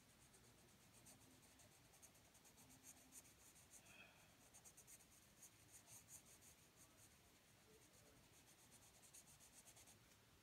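Faint scratching of a graphite pencil shading on paper, in quick repeated strokes.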